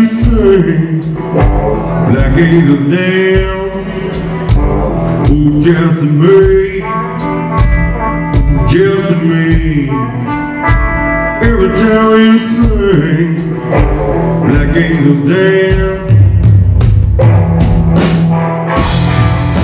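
Live blues-rock band: a male voice singing over electric guitar, bass and drums. About sixteen seconds in, the low end gets fuller and louder as the band comes in harder.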